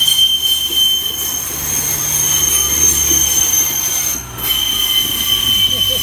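A Pacer diesel railbus moving past the platform, its wheels giving a loud, steady, high-pitched flange squeal over a low drone. The squeal breaks off briefly about four seconds in and then resumes.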